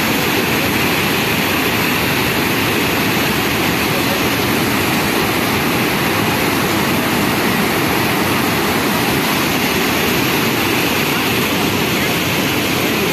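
Hogenakkal Falls on the Kaveri River: a large volume of floodwater pouring over rock ledges, a steady, unbroken rush of falling water.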